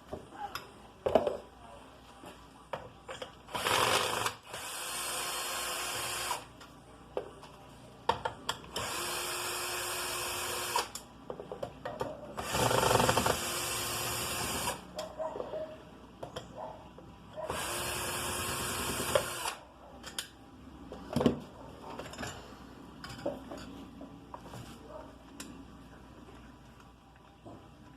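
Handheld power tool run in four short bursts of about two seconds each, with clicks and knocks of tools and parts in between, as a Stihl FS 290 brushcutter is taken apart.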